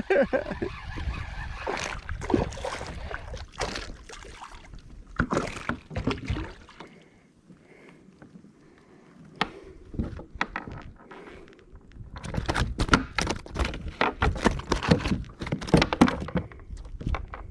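Knocks, rustles and water sloshing around a fishing kayak as a hooked bass is handled and brought in, with a dense run of knocks about two-thirds of the way through.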